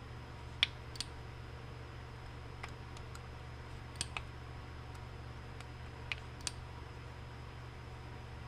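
Scattered light clicks and taps, about eight in all, from small metal engine parts and tools being handled during bench disassembly of a nitro RC engine, over a steady low hum.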